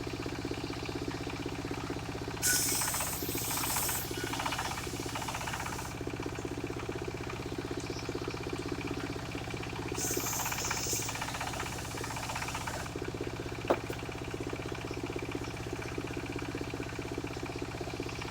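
Engine of a portable circular sawmill running steadily, with the circular blade cutting through timber twice, each cut a few seconds long with a loud hissing whine, about 2.5 s in and about 10 s in. A single sharp click near the end.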